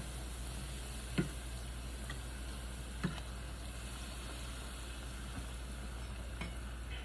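Puffy taco shell frying in hot oil, a steady sizzle, with two sharp clicks about one and three seconds in.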